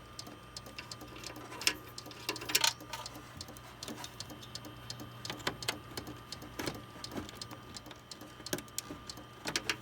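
Running Compaq desktop computer clicking irregularly from inside the open case over a steady hum, the clicking fault it is being diagnosed for. A few louder knocks stand out about two seconds in and again near the end.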